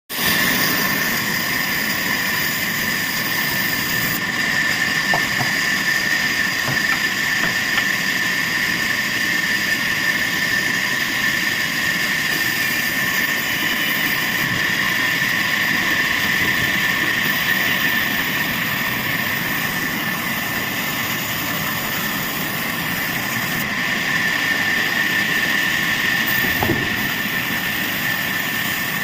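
Sawmill saw and machinery running steadily, with a constant high-pitched whine over a mechanical rumble.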